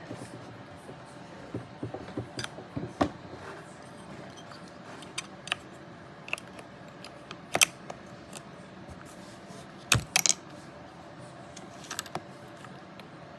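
Keys of a brand-new computer keyboard being pressed now and then: scattered, irregular key clicks with long gaps, the loudest clacks about eight and ten seconds in.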